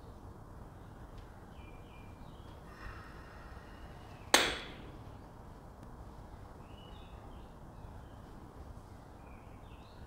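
A single sharp metal clank about four seconds in, ringing briefly as it dies away: a pair of plate-loaded dumbbells knocking together near the top of a slow dumbbell bench press.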